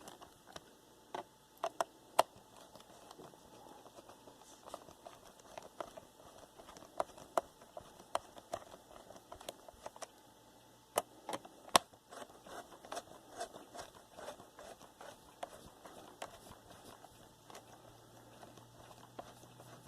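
Scattered small clicks and taps of a screwdriver and hands working on a laptop's plastic case as its cover screws are driven in, with a few sharper knocks now and then.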